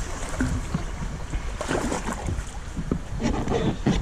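Kayak being paddled on a river: irregular paddle splashes and water noise against the hull, with wind buffeting the microphone as a steady low rumble.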